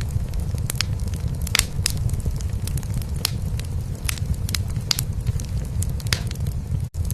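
Wood fire crackling in a fireplace, with sharp pops at irregular intervals over a steady low cat purr. A momentary gap near the end.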